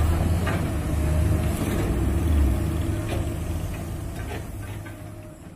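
Heavy diesel engines of an excavator and a truck running with a steady low rumble and a few light knocks. The sound fades out over the last two seconds.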